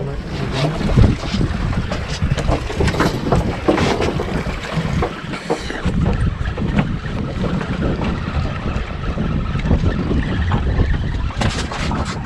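Wind buffeting the microphone aboard a small fishing boat at sea, a gusty rumble with a few short knocks from the boat.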